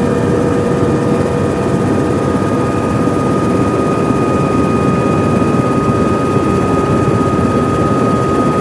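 Helicopter in flight, heard loud from on board: a steady dense rumble of engine and rotor with a constant high whine over it.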